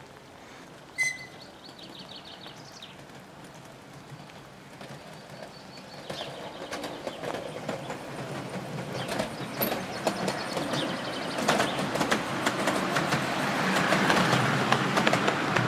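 Miniature 7.25-inch gauge train approaching on the curve and running in close, its wheels rattling and clicking over the track. It grows steadily louder, with the clicking densest near the end.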